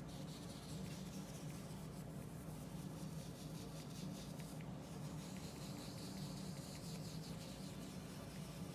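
Faint rubbing and scratching of a small soft brush worked lightly over oil paint on paper, over a steady low hum.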